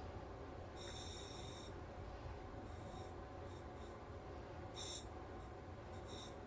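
Breathing through a SMACO full-face dive mask's demand regulator: each inhale draws a faint, whistling hiss through the valve, one longer draw about a second in, then several shorter, uneven draws.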